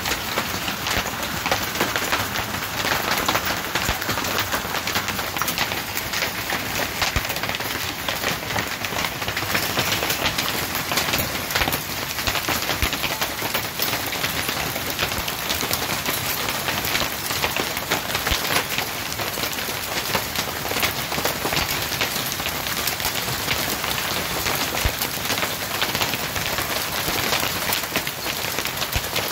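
Hailstorm: hailstones pelting down in a dense, unbroken patter of countless small hits, steady throughout.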